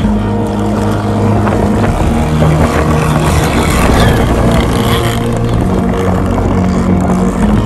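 Gasoline RC power boat's engine running at speed, holding a steady note. Water noise and spray rise for a couple of seconds in the middle as the boat passes close.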